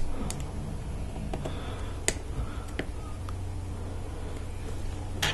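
Sharp little clicks of LEGO Technic plastic parts being pressed together by hand, friction pins snapping into pin connectors: about five separate clicks, the loudest at the start and near the end, over a faint low hum.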